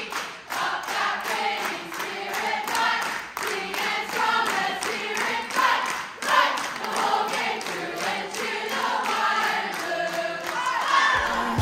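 A group of many mixed voices singing a cappella over steady, rhythmic hand clapping, several claps a second. Recorded pop music with a heavy bass comes in just before the end.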